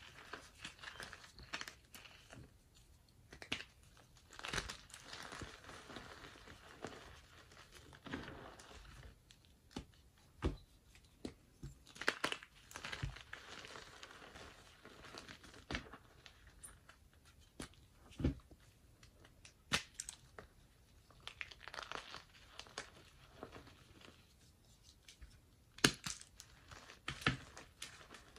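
Hands squeezing and crumbling chunks of gym chalk into powder: soft powdery crunching and rustling, broken by irregular sharp crackles every second or two as lumps break apart.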